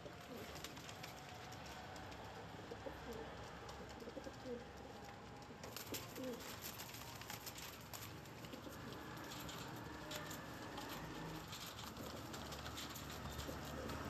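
Domestic flying pigeons cooing in a loft, a few short low coos between about three and six seconds in, with light scattered clicks and taps.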